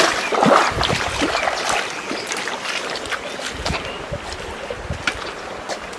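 Bare feet wading through shallow stream water, each step splashing and sloshing, the splashes heaviest in the first second and softer after.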